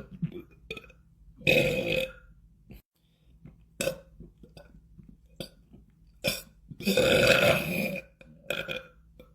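A man belching repeatedly: a longer burp about a second and a half in, a few short burps, then another long burp of about a second near the end, followed by one more short one.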